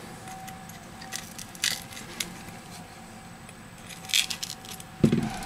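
A few scattered sharp clicks and scrapes of a metal pick prying at a smartphone's shattered front glass, the cracked glass clinking and crunching as it comes away. A duller thump about five seconds in.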